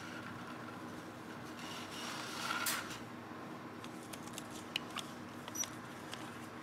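Faint handling noises in a quiet room: a rustling scrape about two seconds in, then a few light clicks and taps, over a low steady hum.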